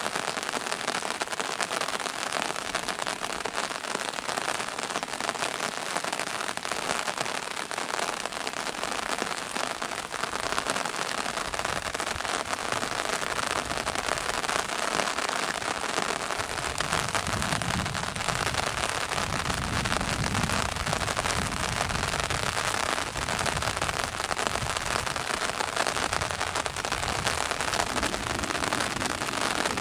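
Steady rain falling. A low rumble comes in about a third of the way through and stays under the rain.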